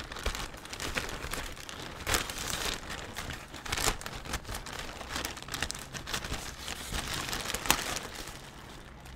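Plastic shipping mailer bag crinkling and rustling in irregular crackles as it is cut open with scissors and pulled apart by hand, easing off near the end.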